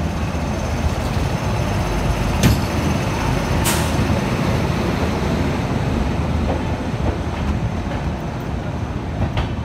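A passenger train behind an electric locomotive rolling past at close range: a steady rumble of wheels on rail, with two sharp clanks about two and a half and three and a half seconds in.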